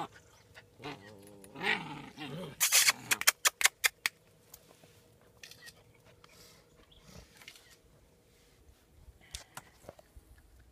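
German Shepherd puppies, seven weeks old, play-growling in the first few seconds, then a quick run of short, sharp sounds, then only faint scattered noises.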